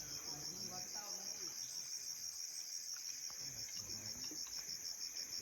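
Tropical jungle insects calling: a steady high-pitched trill that pulses evenly several times a second, over a higher continuous hiss. Faint voices murmur underneath.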